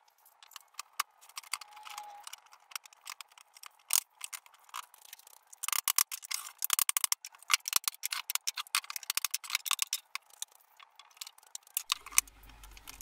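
Quick, light clicks and knocks of pine boards being handled and fitted together on a wooden workbench, played back sped up. The knocks come thickest around the middle, and music comes in near the end.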